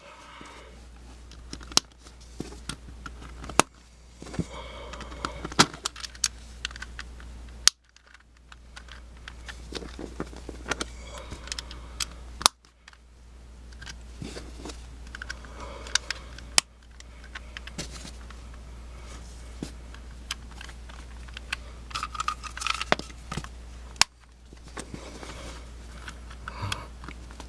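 Small plastic tiles being pressed and snapped into a Rubik's cube by hand: scattered sharp clicks and light rattling and handling noises over a steady low hum, broken by several abrupt cuts.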